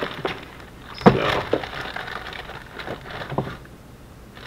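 Handling noise as carrots are taken from their plastic bag: rustling with a few knocks, the sharpest about a second in.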